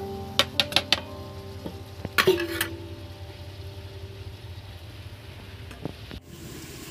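A metal ladle clinks several times against an iron kadai, then a steel lid is set on it with a short ringing clang, over the steady sizzle of a chicken-gizzard curry simmering on a wood fire.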